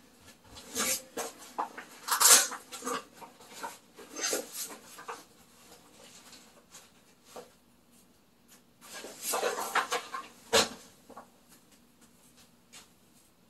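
Small hard objects being handled and set down: scattered clicks and clatter in the first few seconds, and a second bunch about nine to eleven seconds in that ends in one sharp knock.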